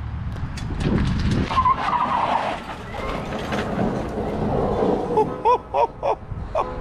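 Custom Club Car golf cart launching hard on concrete, its tyres skidding and squealing, with short shouts near the end.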